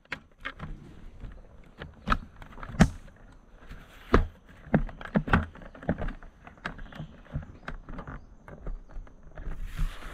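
A string of irregular knocks and clicks from handling and moving about, with a short rasping noise near the end.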